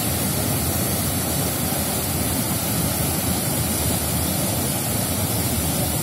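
Muddy floodwater rushing and churning in a swollen river, with water spilling over an eroded bank edge: a steady, loud rushing noise.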